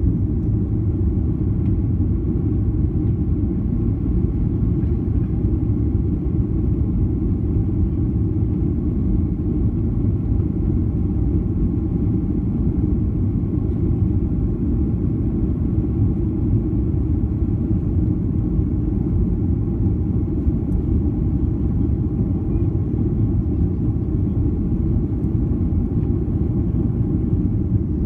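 Steady cabin rumble of a Boeing 737-800 airliner, with the drone of its engines and air noise heard from inside the passenger cabin. It holds an even, unchanging level, with faint steady tones above the low rumble.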